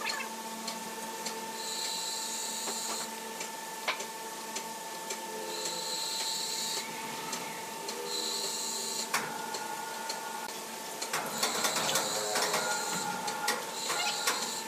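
Sawmill machinery running with a steady hum, a high hiss that comes and goes about every two seconds, and scattered knocks and clatter that thicken about eleven seconds in.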